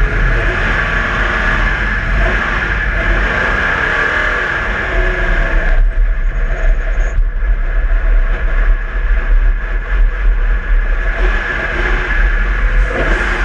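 Walkinshaw HRT Holden VL Commodore Group A race car's V8 running hard on the circuit, its note rising and falling with speed. The sound eases off about six seconds in and picks up again near the end.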